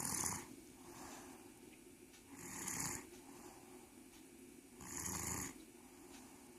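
A sleeper snoring: three loud snores about two and a half seconds apart, with fainter breaths between them.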